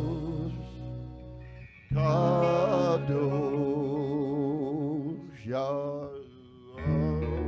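A live band playing a slow worship song: electric guitars and bass guitar holding long chords with wavering notes, the sound fading down and coming back in about two seconds in and again near the end.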